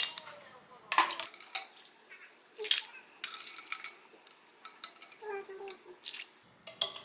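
Cutlery clinking against dishes during a meal: a scattered series of short, sharp clinks.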